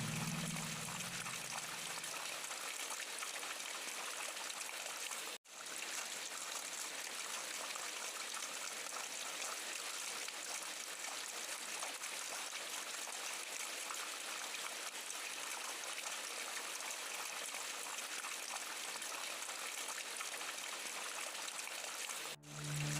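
Steady rain falling without thunder: an even hiss with no pattern, cut off for an instant about five seconds in and again just before the end.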